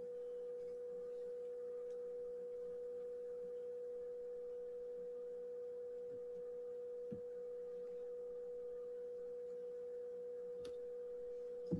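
A steady mid-pitched electronic whine, one constant tone with fainter tones beneath it. A soft tap comes about seven seconds in and a louder click near the end.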